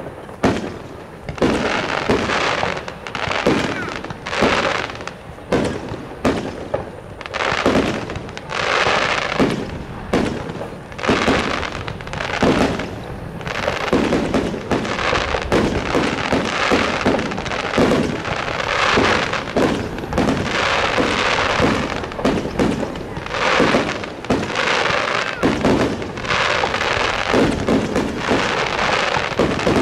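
Fireworks display: shells bursting in quick succession, with a continuous crackle between the bangs.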